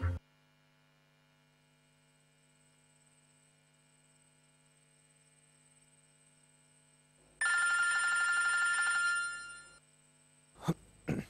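A phone ringing once, an electronic ring of several steady tones about two and a half seconds long, over a faint steady hum. The ring starts about seven seconds in. Two brief short sounds follow near the end.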